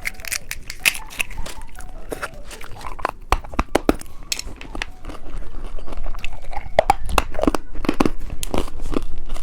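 Candy being bitten and chewed close to the microphone: repeated crisp crunches, growing louder and denser about six seconds in.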